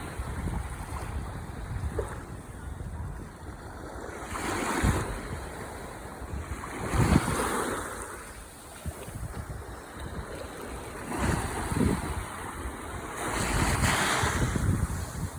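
Ocean waves breaking and washing up the shore, swelling in a surge every few seconds, with wind rumbling on the microphone underneath.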